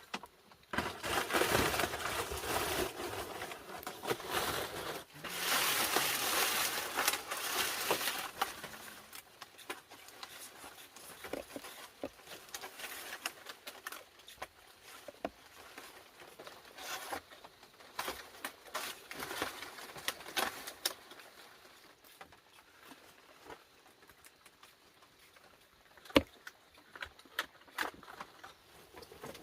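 Rustling and crackling, dense for the first nine seconds or so, then scattered soft taps and clicks, with a sharp knock a little before the end.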